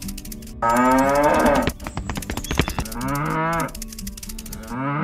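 Cows mooing: three long moos about a second, three seconds and five seconds in, the first the loudest, with a short run of clicks between the first and second.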